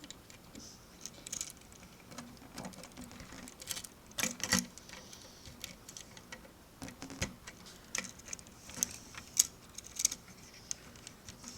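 Lego pieces and chains being handled: irregular small plastic clicks and light rattles, the loudest a pair of clicks a little past four seconds in.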